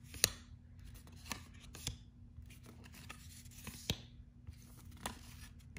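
Yu-Gi-Oh trading cards being slid and flipped over one another on a playmat by hand: light rubbing of card on card, with about five sharp snaps as cards are laid down or flicked.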